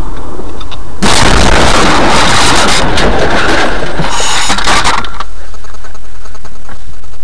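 A car colliding head-on with an oncoming truck, heard from the dashcam inside the car: a sudden loud crash about a second in, followed by crunching and rattling noise that lasts about four seconds before dying down to a lower steady noise.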